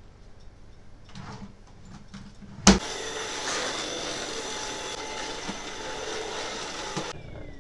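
Cordless stick vacuum cleaner switched on with a sharp knock about a third of the way in, running steadily for about four seconds and then cutting off suddenly.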